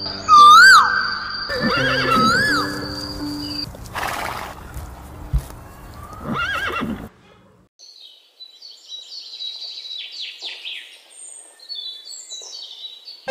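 Horse whinnying: a loud, wavering neigh about half a second in, then shorter neighs, over background music. In the second half only faint bird chirps remain.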